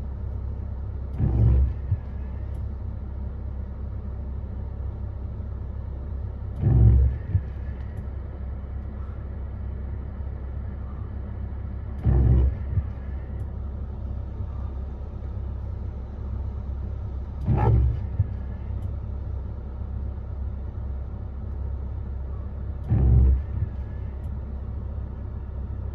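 Mahindra Thar's engine idling, a steady low rumble heard from inside the cabin, with a short louder whoosh about every five and a half seconds.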